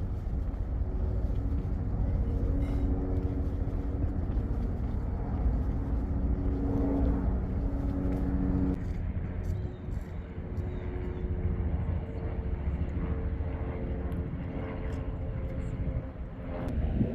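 A steady engine hum over a low rumble, its pitch shifting about nine seconds in.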